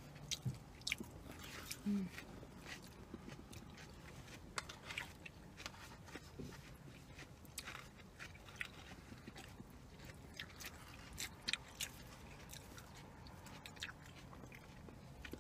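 Close-up chewing and biting of two people eating salad and rice: faint, irregular wet mouth clicks and crunches scattered throughout.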